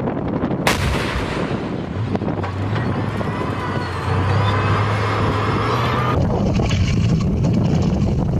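A tank's main gun fires once, about a second in: a single sharp blast that echoes and rolls away, with a steady low hum following.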